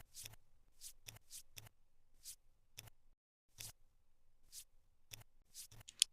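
Cardboard jigsaw puzzle pieces being handled and pressed into place on a table: a dozen or so short, crisp clicks and taps at an irregular pace, the sharpest one near the end.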